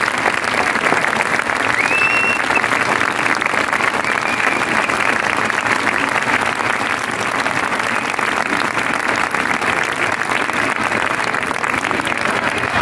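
A large crowd clapping in steady, sustained applause: a dense patter of many hands.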